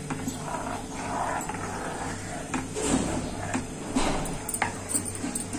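Metal spoon stirring thickened milk in a steel pan, scraping over the bottom and clicking against the sides at irregular moments, over a steady low hum.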